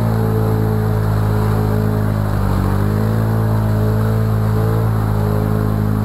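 ATV engine running at a steady throttle while the quad ploughs through a muddy puddle, its pitch dipping a little about halfway and picking up again, with muddy water splashing.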